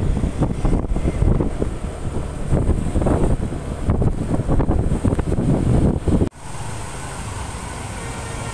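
Road vehicle rumble with wind buffeting the microphone in irregular surges. About six seconds in it cuts off sharply to a steadier, slightly quieter traffic hum.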